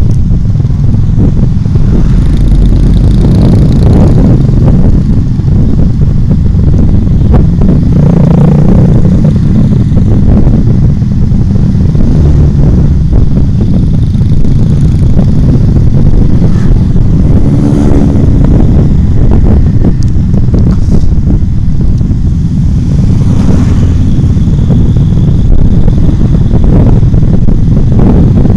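Loud, steady wind rumble on the microphone of a moving motorcycle, mixed with its engine and the traffic of other motorcycles riding alongside.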